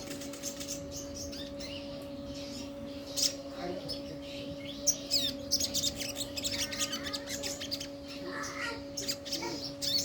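Crimson sunbird (sogon, sogok ontong) calling in bursts of quick, high chirps and trills, over a faint steady hum.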